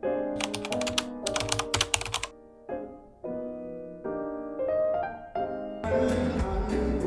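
Computer keyboard typing in two quick runs of keystrokes over soft piano background music. Near the end, fuller music with a bass beat comes in.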